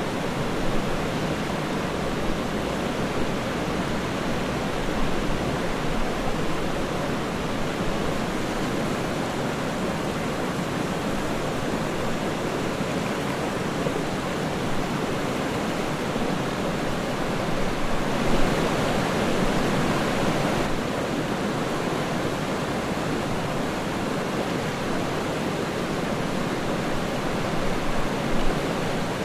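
Waterfall: water falling and splashing in a steady, unbroken rush, swelling slightly for a couple of seconds about two-thirds of the way through.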